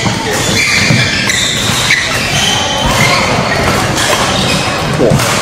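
Badminton rally in a large hall: rackets striking the shuttlecock, with shoes squeaking and footfalls on the court floor, and the hall's reverberation behind.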